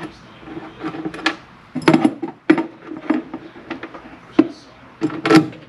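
Plastic battery box being handled and set into a car trunk, with mounting hardware being put into it: irregular clicks and knocks, the loudest about two seconds in and again near the end.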